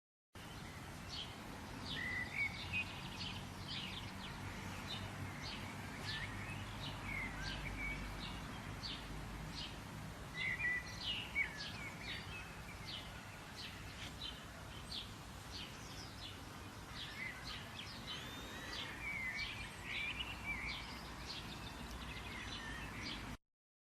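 Birds chirping: many quick, sharp notes and a few short warbling phrases, over a steady low outdoor rumble.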